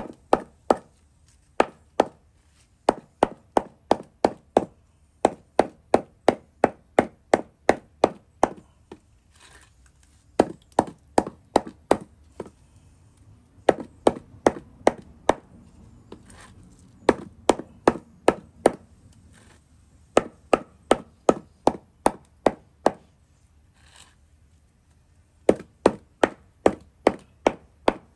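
Hammer pounding a piece of sun-dried stingray on a wooden block: sharp strikes about three a second, in runs with short pauses between. The pounding is done to soften the dried fish.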